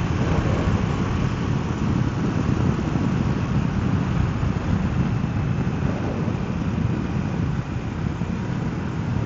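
Steady wind rush and road noise of a KTM motorcycle cruising at road speed, with wind buffeting the rider's microphone and the engine running evenly underneath.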